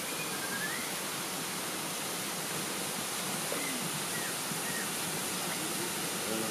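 Steady rush of water spilling over a low concrete weir into the pool below.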